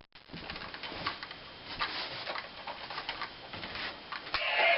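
Plastic toy belt being handled: a run of small clicks and rustles. Near the end the DX OOO Driver's electronic sound starts, much louder, with warbling tones.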